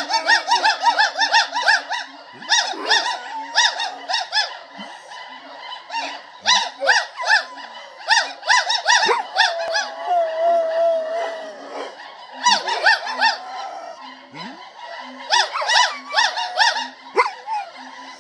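Gibbons singing in rapid series of repeated whooping notes, with a dog howling along; one long wavering howl about ten seconds in.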